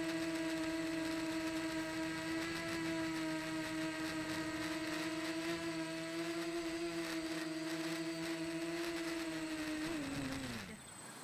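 Mini FPV quadcopter's brushless motors and propellers whining steadily as it comes down to land, then spinning down quickly near the end after touchdown.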